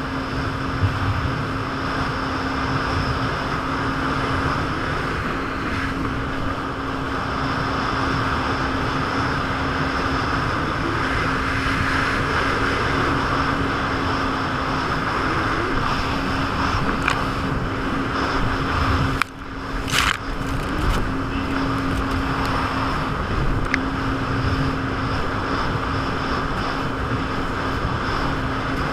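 Jet ski engine running steadily at speed, one even tone under a constant rushing noise. About two-thirds of the way through the sound dips briefly, then a short sharp burst of noise follows.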